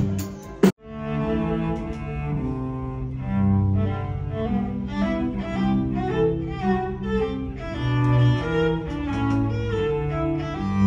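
Violin and cello duo playing a classical piece in long bowed notes. Less than a second in, a short stretch of band music with drum hits cuts off abruptly, and the strings take over.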